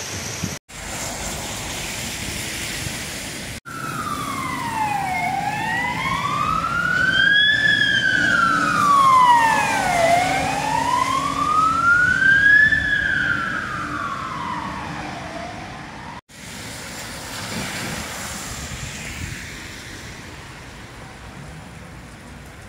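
Fire engine siren wailing, sweeping slowly up and down in pitch, each rise or fall taking about two and a half seconds. It runs over a steady rush of rain and running floodwater with wind on the microphone, and cuts off abruptly about sixteen seconds in.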